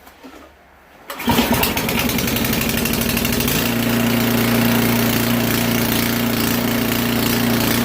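New gas snow blower's engine pull-started from cold, catching on the first pull about a second in. It runs rough for a couple of seconds, then settles into a steady idle.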